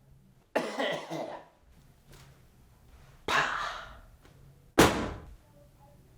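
A person coughing in three fits: a double cough about half a second in, then single harsh coughs at about three and a half and five seconds.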